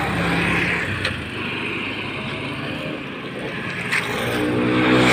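Road traffic passing on a city road: vehicles go by with tyre and engine noise. One vehicle swells closer near the end with a steady engine drone. There are two faint knocks, about one second in and about four seconds in.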